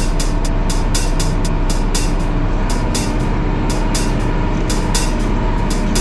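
A Unimog's diesel engine running under load with a steady drone, over a rapid, uneven clatter of knocks and rattles, several a second.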